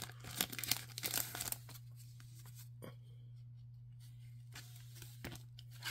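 Tape and paper wrapping torn and peeled open by hand, crinkling and rustling for about the first second and a half. After that come only a few faint scrapes and clicks as a card in a plastic holder is slid out of a cardboard sleeve, over a steady low hum.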